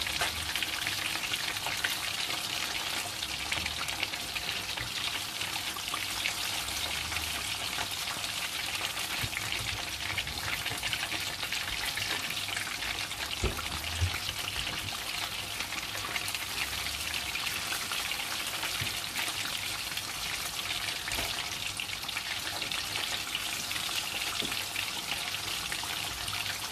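Battered fish pieces deep-frying in hot oil, a steady sizzle, the pieces now cooking on their second side after being turned. A light knock or two sounds about halfway through.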